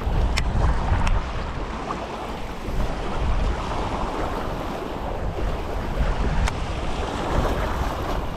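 Wind buffeting the microphone over the wash of waves, a steady rushing noise with heavy low rumble, broken by a few faint sharp clicks.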